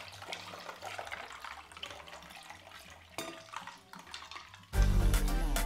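Ginger juice pouring in a steady stream from a glass jug into a glass bowl of ice cubes, a continuous splashing trickle over faint background music. Loud music with a beat cuts in near the end.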